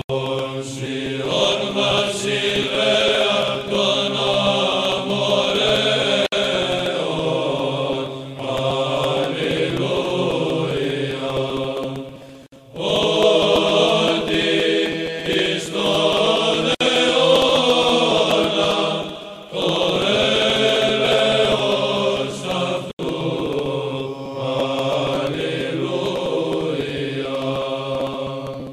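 Background music of slow vocal chant over a steady low drone note, sung in long phrases with short breaks about twelve and nineteen seconds in.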